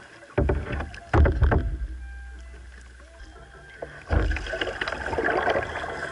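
Kayak being paddled: knocks and thuds on the plastic hull in the first second or so and again about four seconds in, with water splashing and dripping from the paddle.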